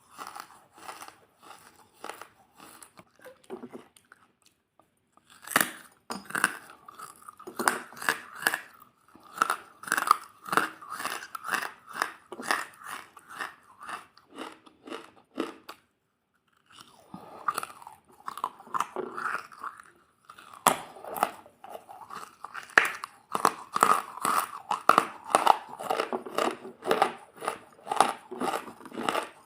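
Crunchy food being bitten and chewed close to the microphone: rapid, crisp crunches, broken by two short silent pauses about four and fifteen seconds in.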